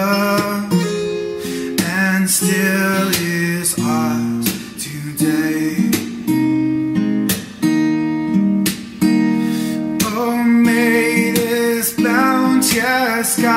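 Hymn music played on a strummed acoustic guitar, with regular strokes across sustained chords and a wavering melody line above them.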